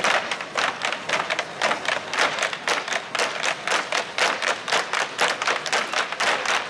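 A group of tap dancers' tap shoes striking the ground together in a quick, even rhythm of sharp clicks, about four a second.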